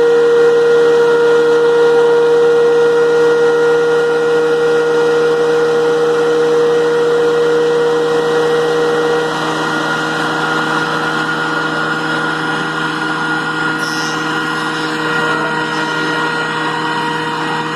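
DeWalt DW735 thickness planer running with a vacuum pulling its chips, set to high speed and taking light passes on a rough board. A loud, steady machine sound; one strong tone in it fades out about halfway through as the overall level drops a little.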